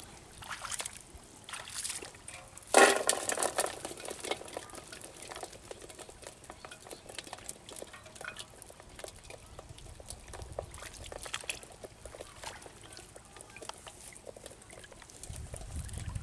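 Shallow water in a flooded rice paddy splashing and sloshing as a fish trap is handled, with a sudden loud burst about three seconds in, then faint wet clicks and trickling.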